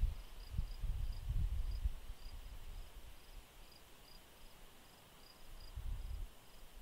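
Insects chirping faintly in a steady, evenly repeated high-pitched pattern, with bursts of low rumble over the first two seconds and again near the end.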